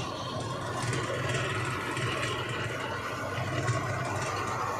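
Mahindra Novo 605 tractor engine running steadily under load while pulling a seed drill through rice stubble, with the noise of the drill working the soil over it.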